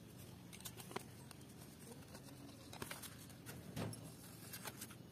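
Faint handling sounds: a paper template being moved over a steel worktable by gloved hands, with scattered light ticks and a soft thump a little before four seconds in.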